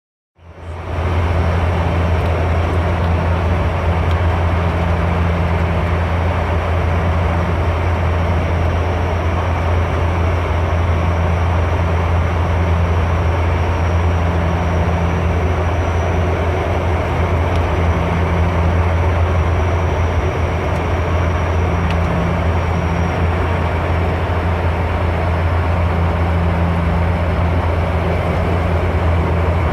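Cabin noise inside a Dash 8 Q400 turboprop airliner on approach: the steady, loud low drone of its propellers with a hiss of airflow over it.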